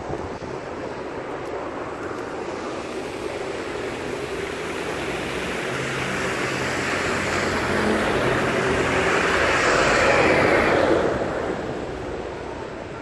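A red double-decker bus passing close on a wet road: engine hum and tyre hiss build over several seconds, are loudest about ten seconds in, then fade quickly.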